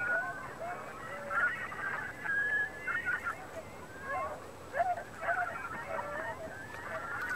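A chorus of many short, overlapping animal calls, some sliding up or down in pitch, going on without a break.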